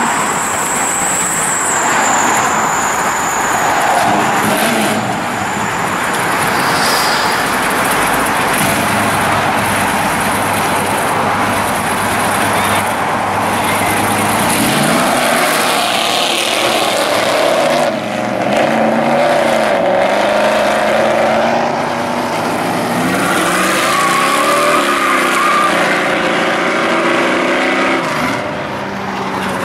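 1969 Dodge Charger 'General Lee' engine running loud as the car pulls away. About halfway through it revs up and down, its pitch rising and falling.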